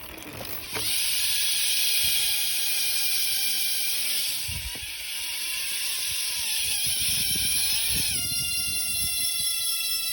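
Tall Order Drone cassette BMX hub freewheeling: the spinning wheel gives a fast, high-pitched ratcheting buzz. About eight seconds in, the buzz turns into a clear tone that slowly drops in pitch.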